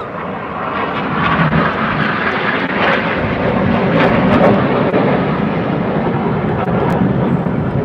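Red Arrows' BAE Hawk jets passing overhead, their engine noise a rushing sound that swells over the first few seconds, is loudest about four seconds in, and stays loud.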